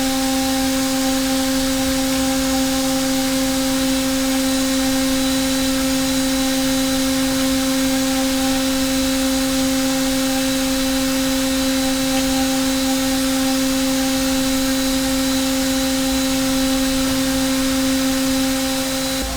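Hermle C400 CNC machining centre running a 4.5 mm three-flute carbide end mill through aluminium on a high-feed iMachining roughing pass, cut dry: a steady whine with even overtones over a hiss of cutting.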